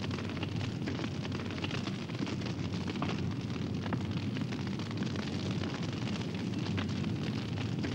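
Large fire burning: a steady low rumble with many small crackles throughout.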